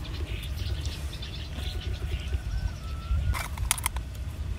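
Steel knife blade working against a freshwater pearl mussel's shell, with a cluster of sharp clicks a little over three seconds in, over a steady low rumble.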